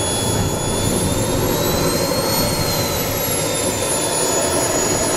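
Jb-130 model jet turbine of a radio-control F-100 taxiing, running with a steady rush and a high whine that rises in pitch to about halfway through, then falls back.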